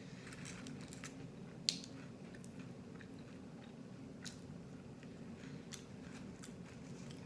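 Close-miked mouth biting into and chewing crunchy food, with scattered crisp crackles and one sharp, loud crunch a couple of seconds in, over a steady low hum.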